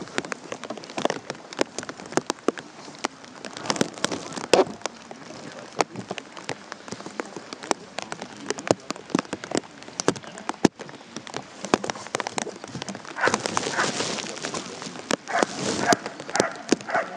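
Rain falling close to the microphone: many irregular sharp taps of raindrops over a steady hiss.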